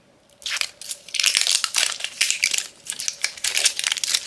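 Tight plastic shrink wrap crinkling and crackling as it is peeled off a tin ornament ball by hand. It starts about half a second in.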